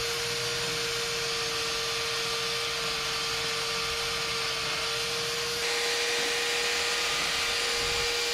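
Electric chainsaw running at a steady high whine while its bar is worked over the wooden hull planking to shave the surface smooth, so-called chainsaw sanding. It gets a little louder after about five and a half seconds.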